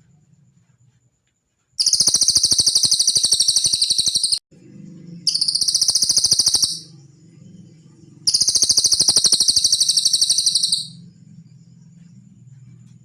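Cililin bird singing three long, fast trills of rapidly repeated high notes, the first and last about two and a half seconds long, the middle one shorter, with short pauses between them.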